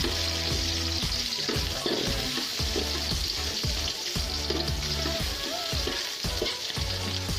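Garlic and onion sautéing in hot cooking oil in a pan, with a steady sizzle while they are stirred. Background music with a low bassline plays underneath.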